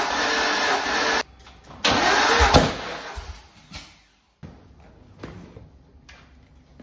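A C6 Corvette Z06's 7.0-litre LS7 V8 runs roughly on only about three cylinders, then cuts out suddenly about a second in. It catches again for under a second, ending in a sharp pop, and dies away. The lifters are pumped up and holding the valves open, leaving most cylinders without compression.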